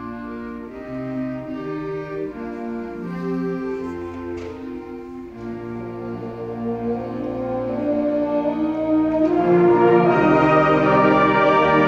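Middle-school concert band playing held chords softly, then building to a louder full-band passage about nine seconds in.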